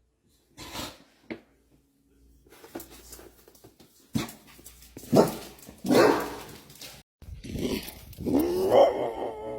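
Dog barking in a few separate short bursts, then a long wavering call near the end whose pitch rises and falls.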